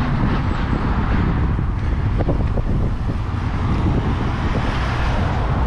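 Strong wind buffeting the camera microphone as a steady low rumble, with road traffic driving past on the bridge.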